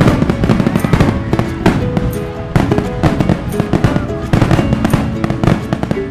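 Fireworks going off in rapid, dense crackles and bangs, with music playing underneath.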